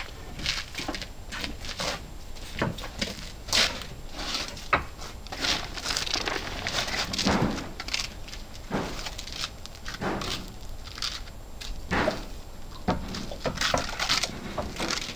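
Cut pieces of wooden lumber knocking and clattering as they are handled and stacked on a workbench, in irregular knocks, the sharpest about three and a half and nearly five seconds in.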